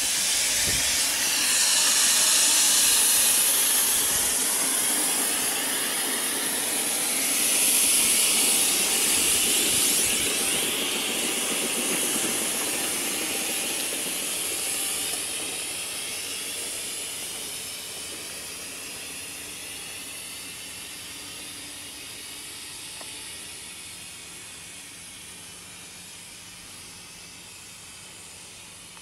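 Accucraft K28 coal-fired live-steam model locomotive hissing steam as it runs. The hiss is loudest in the first few seconds and fades steadily as the train draws away.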